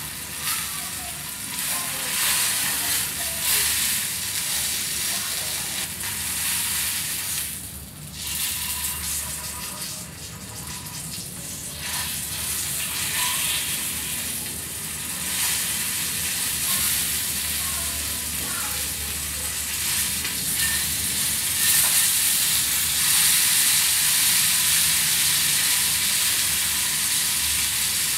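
Pork steak sizzling as it sears in hot fat in a shallow metal pan: a steady crackling hiss with a brief lull about a third of the way in, louder toward the end.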